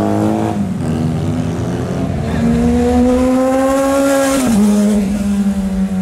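Inline-four sport motorcycle engines accelerating past. The revs climb steadily, fall away sharply about four and a half seconds in, then settle to a steadier engine note.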